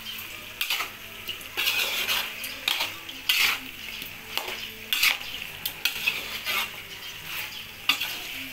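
A metal spoon scraping and clinking against a kadai as chicken and vegetables are stirred through with chilli powder, in irregular strokes. A light sizzle of the mixture frying in oil runs underneath.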